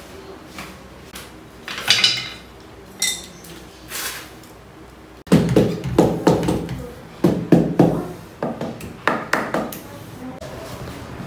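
Light clinks and knocks of hand tools for the first few seconds, then, after a cut about five seconds in, a run of dull thumps, about two a second, as a hand tool strikes a ceramic wall tile being set under the kitchen cabinets.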